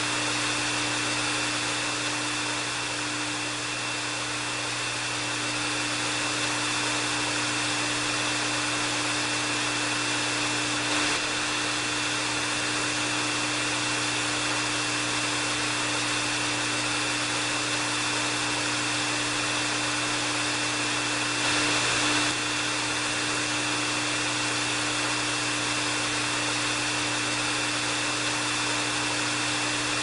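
Hair dryer running steadily: a constant rush of air with a steady high whine and a low hum beneath it.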